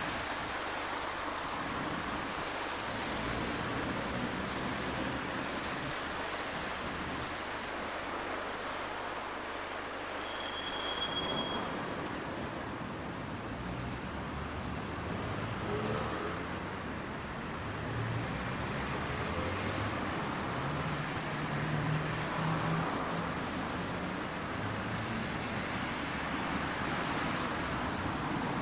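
Road traffic noise: a steady wash of passing cars, with engine hum from nearer vehicles stronger in the second half. A short high tone sounds about ten seconds in.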